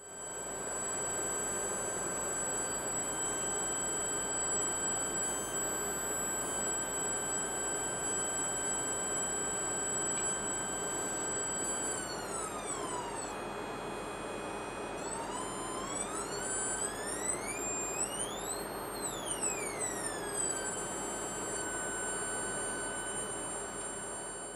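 High electrical whine with overtones from a pulsed bifilar-inductor test circuit, over a steady hiss. The pitch holds steady, dips lower about halfway through, then sweeps up to a much higher peak and glides back down to its first pitch.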